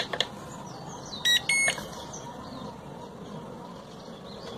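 A couple of sharp clicks, then two short electronic beeps about a second and a half in, from the EX4 Pro drone and its remote controller as they are switched on.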